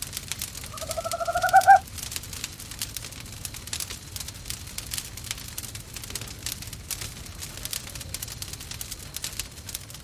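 Fireplace crackling with scattered pops. Near the start, one rising, quavering owl call about a second long.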